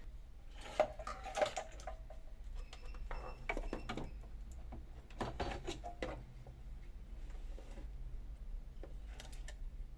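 Irregular clicks, knocks and rustling as wires and parts of a home theatre unit are handled during a repair, over a steady low hum.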